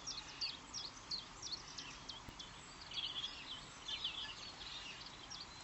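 Faint, rapid high-pitched chirps and cheeps from small birds, many short notes repeated irregularly over a soft background hiss.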